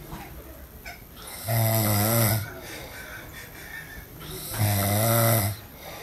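A sleeping man snoring: two long pitched snores, each about a second long, about three seconds apart.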